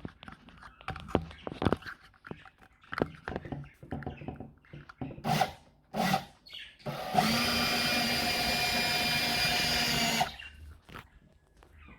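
Electric drill running at a steady speed for about three seconds and then stopping, turning the CNC machine's axis drive in place of its motor to run the gantry along its rails. Before it, a few scattered knocks and clicks from handling the machine.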